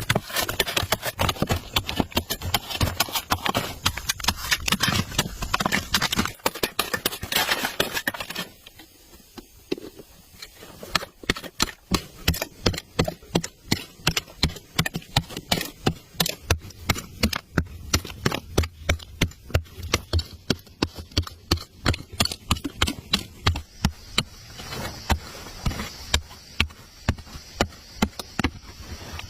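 Rapid, repeated sharp knocks of a hand tool striking, about two or three a second, denser and louder in the first eight seconds.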